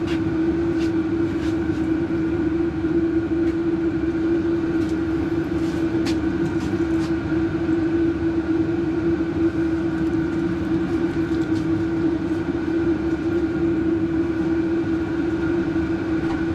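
A steady mechanical hum with a strong low tone, unchanging throughout, with scattered light clicks and knocks of things being moved about while a drawer is searched for a voltmeter.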